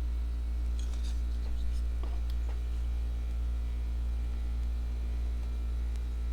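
Steady low electrical hum, with a few faint clicks and taps of a folding knife being handled between about one and two and a half seconds in.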